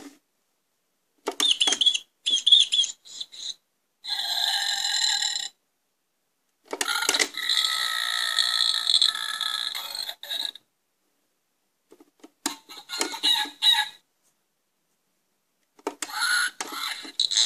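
The Ugglys Pet Shop Gross Homes parrot cage toy playing its electronic sound effects through its small speaker, very loud. There are five short clips, each set off by pressing the cage, with dead silence between them.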